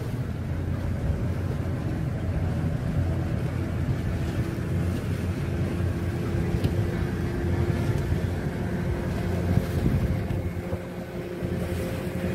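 Sailing yacht's inboard diesel engine running steadily as the boat motors out of harbour, a constant low hum with a little wind on the microphone.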